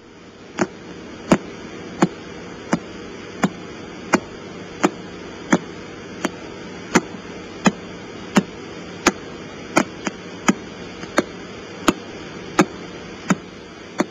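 Radio telescope recording of a pulsar played through a loudspeaker: a steady hiss of radio static with a sharp knock about every 0.7 seconds, each knock one pulse of the pulsar's radio beam. The knocks come in an even, persistent rhythm.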